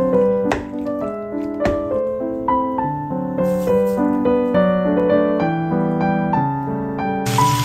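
Background piano music playing a slow melody over held chords. Just before the end a steady sizzling hiss of food frying in a pan cuts in.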